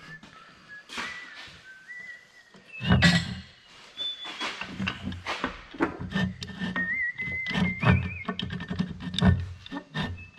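Metal clicks and clunks as a churn drill's clutch pressure plate is turned by hand on its main shaft, hunting for the hole its locking pin drops into. Over this, someone whistles a wandering tune.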